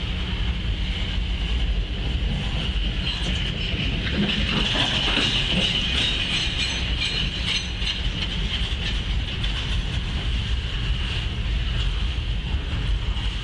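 Freight train's refrigerated boxcars rolling past: a steady rumble of steel wheels on the rails with some clicking, and a high-pitched hiss that grows louder for a few seconds about four seconds in.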